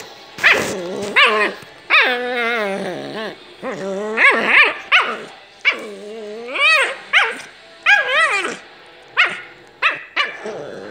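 Pit bull–type dogs wrestling, with a string of loud growls and growly barks, each wavering in pitch and some drawn out and warbling, about one a second.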